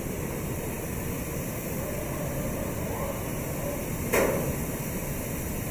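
Steady low rumble of hall noise while large wooden shipping crates are handled, with one sharp knock about four seconds in, a wooden crate panel being struck or set down.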